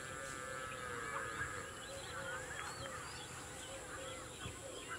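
Many birds chirping and calling over one another, with one longer drawn-out call in the first second and a half and a steady high-pitched hum underneath.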